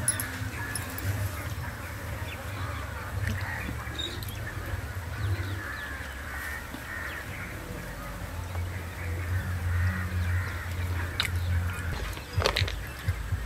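Outdoor ambience: birds calling faintly and repeatedly over a steady low rumble, with two or three short sharp clicks near the end.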